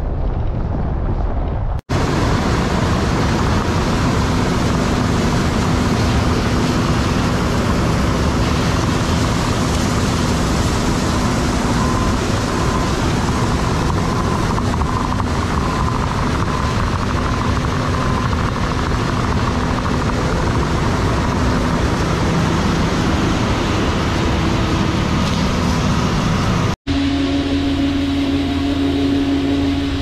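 John Deere STS combine harvesting at close range: a loud, steady mix of engine drone and threshing noise with a faint steady whine. Near the end it gives way to a combine's steadier engine drone while it unloads grain through its auger.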